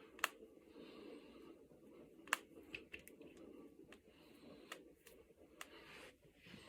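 Finger knuckles being cracked: a scatter of sharp single pops, the loudest about two seconds in, with several softer ones after.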